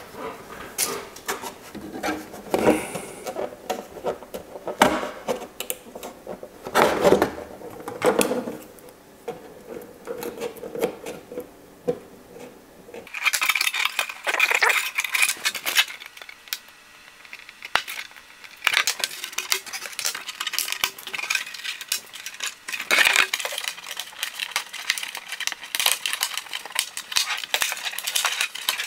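Thin clear plastic RC car body being handled and flexed, crackling and clicking, with many small clicks and a stretch of brighter crinkling in the second half.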